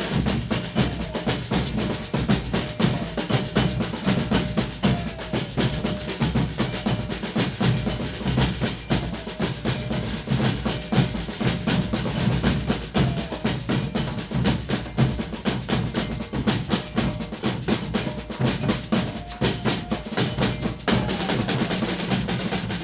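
Brazilian percussion group playing together: a dense, driving rhythm of bass drums and snare drums, with a small shift in the pattern near the end.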